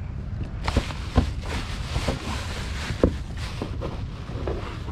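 Irregular knocks and rustling as a landing net holding a freshly caught small catfish is handled against the side of a kayak, the loudest knock about three seconds in, over a low steady rumble.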